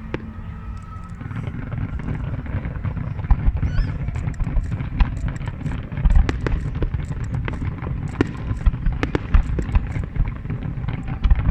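Fireworks display: a dense run of bangs and crackles over a steady low rumble, growing busier and louder a few seconds in.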